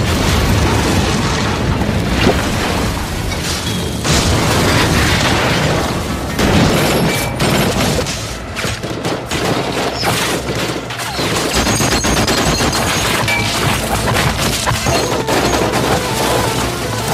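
Film battle sound: mortar shells exploding one after another amid bursts of gunfire, a dense and continuous barrage.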